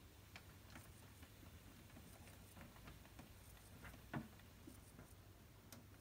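Near silence in a small room, broken by faint, irregular ticks and clicks and one soft knock about four seconds in.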